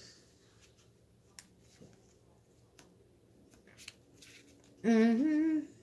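Faint, sparse ticks and light scraping of a ball-tipped paper-flower shaping tool pressing paper petals into a foam mat. Near the end, a woman hums briefly, rising then holding, louder than the tool.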